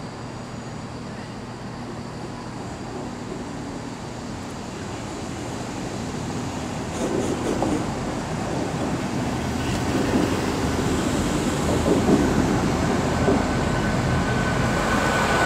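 Great Western Railway Class 800 bi-mode train running in slowly on its underfloor diesel engines, growing steadily louder as it approaches. A thin steady whine joins in near the end.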